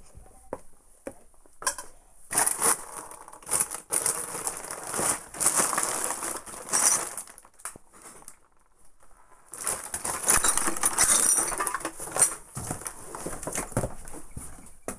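Piled household rubbish being disturbed: plastic rustling and crinkling with light clinks of glass and small objects, in two long stretches with a quiet pause in the middle.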